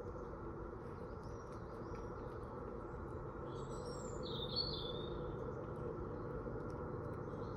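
Woodland birds calling in short high chirps, with a louder cluster of calls about four seconds in, over a steady low background hiss.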